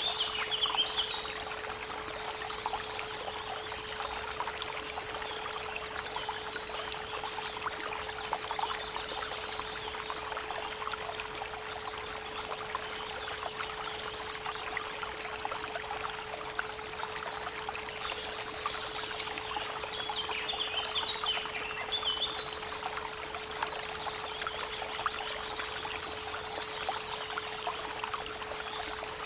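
A steady 432 Hz pure tone hums under the continuous rush of a babbling creek. Songbirds chirp in short bursts at intervals over the water.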